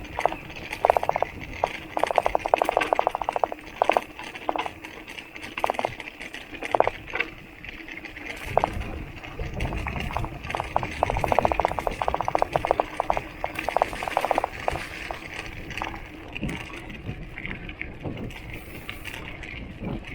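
A mountain bike's bottle cage rattling as the bike is ridden over rough ground: bursts of fast clattering, heaviest about two seconds in and again from about ten to fifteen seconds in, over a steady hiss.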